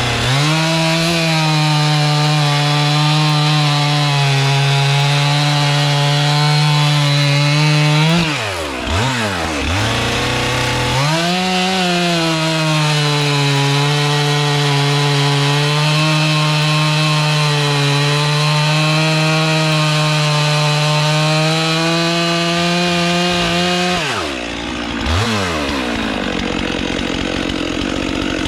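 Stihl MS 400 C two-stroke chainsaw bucking logs under load in two long cuts. The engine pitch dips and climbs back about eight seconds in, and near the end the throttle is let off and the saw falls back toward idle.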